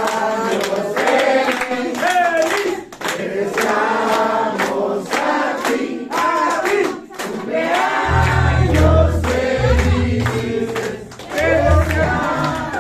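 A group of people singing together and clapping along. About eight seconds in, a heavy bass line comes in under the voices.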